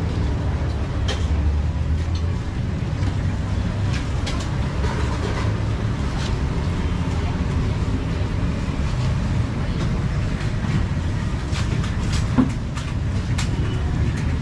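Busy outdoor market ambience: a steady low rumble with faint voices in the background and scattered clicks and clatter, one sharper knock near the end.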